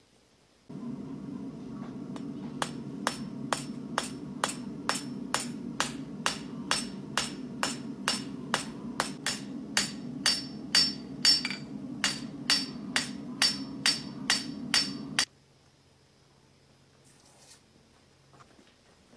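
A farrier's hammer beating metal on an anvil in an even rhythm of about two to three blows a second, each blow ringing, as a horseshoe is shaped. A steady low hum runs underneath, and both stop suddenly about fifteen seconds in.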